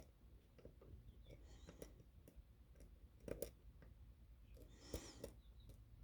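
Lock pick working the pins inside a lock: faint, scattered small clicks and scrapes, a few a little louder about three seconds in and around five seconds in.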